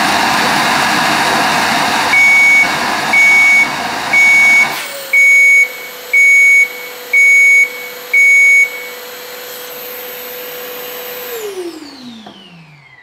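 Bosch GAS 18V-12 MC cordless vacuum cleaner's brushless motor running with its hose blocked, its airflow alarm beeping seven times, about once a second, to warn of the clogged hose. About five seconds in, the rush of air drops away and the motor settles on a lower steady note. Near the end the motor is switched off and winds down with a falling whine.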